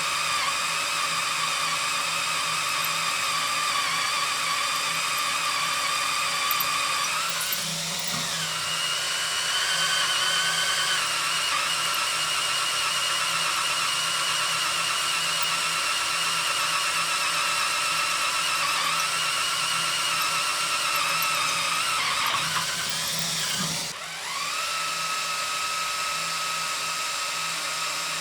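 Cordless drill boring into steel, its motor whining steadily. The pitch dips and shifts twice, about eight seconds in and again near twenty-four seconds, as the load on the bit changes.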